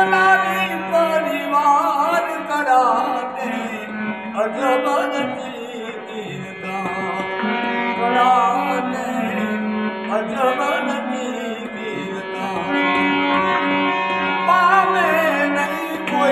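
Harmonium playing a devotional bhajan: a low note is held throughout as a drone under a stepping melody, while a man sings wavering, ornamented phrases over it.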